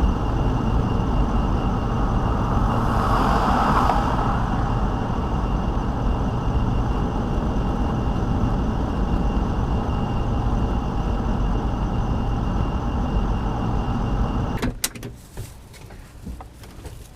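Class C motorhome driving at road speed: steady engine and tyre rumble with wind rushing through the open cab window, and a brief louder rush about three seconds in. Near the end the sound drops off abruptly to a much quieter stretch with a few sharp clicks.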